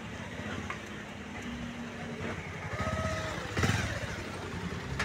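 Motor vehicle running in road traffic, a steady low engine rumble. Near the middle a short steady tone sounds for about half a second, and just after it comes a loud thump.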